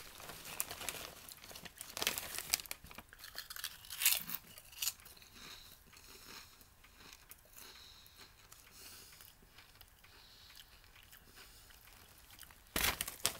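Eatz Hot & Spicy potato chips being crunched and chewed, the crunching thickest in the first few seconds and then quieter, with the foil chip bag crinkling. A louder rustle of the bag comes near the end.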